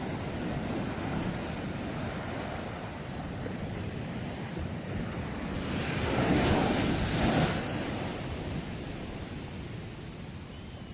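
Ocean surf washing steadily onto the shore, with one wave breaking louder about six seconds in. Wind buffets the microphone.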